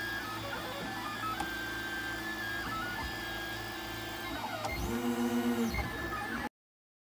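MakerBot 3D printer printing: its stepper motors whine in steady tones that jump from pitch to pitch as the printhead moves, over a low steady hum, with a louder pulsing hum near the end. The sound cuts off suddenly.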